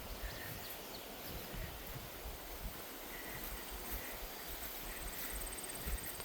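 Footsteps along a woodland trail, with wind blowing through the trees.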